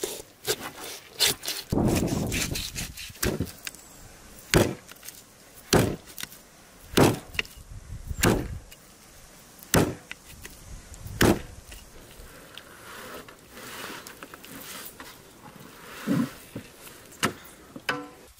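A knife slicing and tearing raw fish flesh, then a heavy cleaver chopping through a large fish's head and backbone onto a wooden board: about six sharp strikes, roughly one every second and a half.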